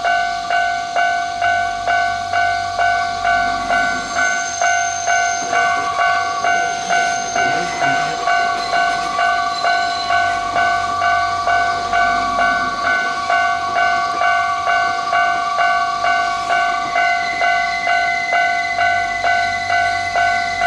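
Japanese railway level-crossing warning bell ringing steadily, an electronic ding about twice a second. Beneath it a train runs past, with a steady high whine joining a few seconds in.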